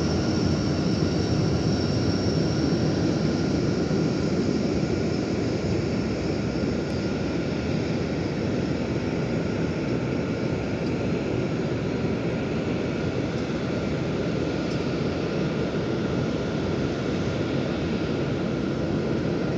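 Boeing 737-800 jet engines running steadily at taxi power as the airliner moves away: an even rushing noise with a high whine that slowly fades.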